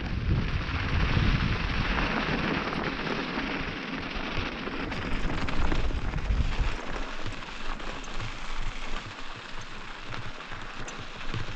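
Wind buffeting the microphone and mountain bike tyres crunching over loose gravel on a dirt track. The low rumble is heavy for the first seven seconds or so, then eases, leaving a lighter hiss with scattered clicks and rattles.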